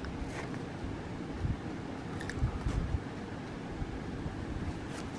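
Quiet room tone: a low steady rumble with a few faint soft clicks from handling the work.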